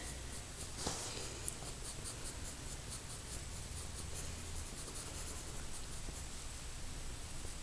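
Graphite pencil scratching on drawing paper in quick repeated shading strokes, with a slightly louder stroke about a second in, over a low steady hum.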